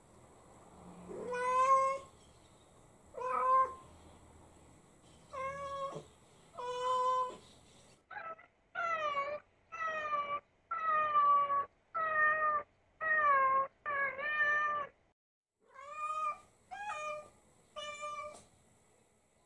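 Silver tabby American Shorthair cat meowing over and over in a high, baby-like voice, crying for its absent owner. The meows come one every second or two, with a quicker run of longer, downward-sliding cries in the middle.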